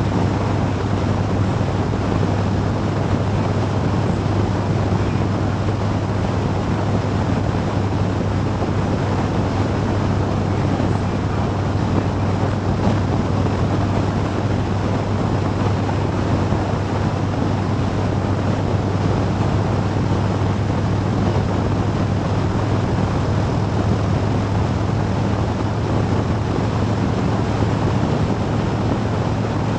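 Motorcycle cruising steadily at highway speed: an even engine drone under heavy wind rush on the camera's microphone, with no change in pace throughout.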